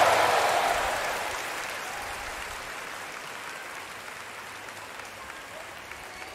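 Arena crowd applauding, loud at first and dying down over the first couple of seconds to a quieter, steady clapping.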